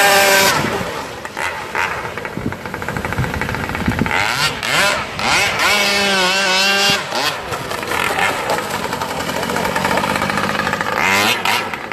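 Loud engine of a brush cutter fitted to a remote-controlled longtail boat, running hard with its pitch rising and falling as the throttle is opened and eased.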